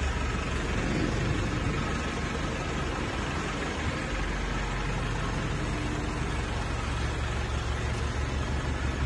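Diesel engine of a 2023 Mitsubishi Strada pickup idling steadily, a low even rumble with a regular pulse.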